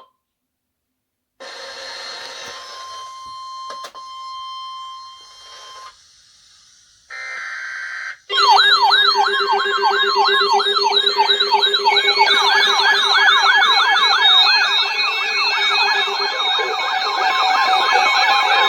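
Emergency alert attention signal announcing an updated severe thunderstorm warning: a loud, fast warbling siren-like tone that starts about eight seconds in and thickens with more overlapping tones from about twelve seconds on. Before it come a silent gap, a few seconds of hiss with a steady tone, and a short burst.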